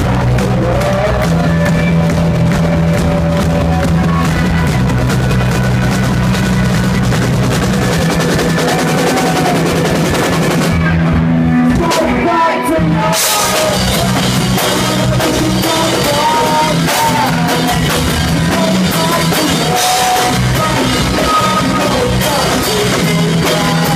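Live rock band playing loud, with electric guitars, drum kit and a singing voice. Around eleven seconds in the cymbals and upper parts drop away briefly, and at about thirteen seconds the full band comes back in.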